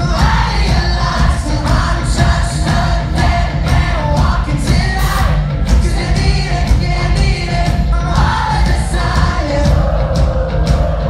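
Live pop-rock band playing loud, with electric guitars, drums keeping a steady beat and a lead singer, heard from among the crowd.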